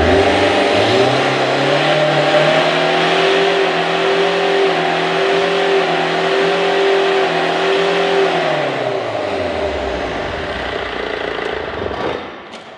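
Four-cylinder CRDI diesel engine on a training stand, revved up at the start and held at a steady raised speed for about eight seconds. It then drops back and shuts off about twelve seconds in.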